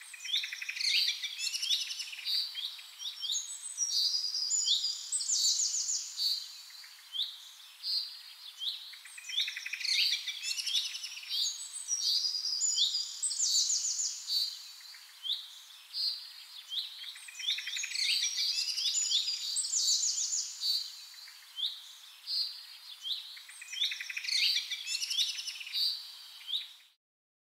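Songbirds chirping and singing: quick, high chirps, short sweeps and trills in phrases that repeat every couple of seconds. The sound cuts off abruptly near the end.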